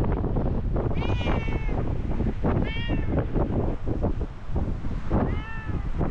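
A stray cat meowing three times, each a short call that rises and falls, over heavy wind buffeting the microphone.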